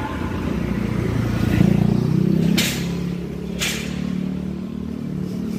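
A motorcycle's engine approaching and passing close by, getting louder to a peak about two seconds in and then fading away. Two short hissing bursts come about a second apart in the middle.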